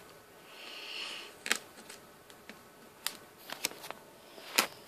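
Small cardboard graphics-card box being handled and worked open with a hand tool: a short scraping hiss about half a second in, then a scatter of sharp clicks and taps.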